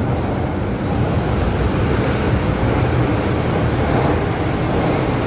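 MTR first-generation M-Train (CM Stock) metro train running along the line with a steady rumble, and a few faint clicks a second or two apart.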